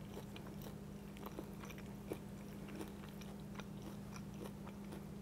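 Faint chewing and crunching of a mouthful of blue corn tortilla chip nachos, heard as scattered small crunches over a steady low hum.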